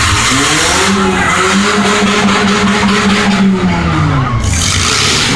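Demolition derby car engine revving up, held at high revs for a couple of seconds, then dropping back. Heard over a loud steady wash of other engines and tyre noise.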